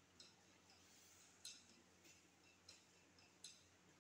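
Near silence: faint room tone with about four light clicks, the loudest about a second and a half in.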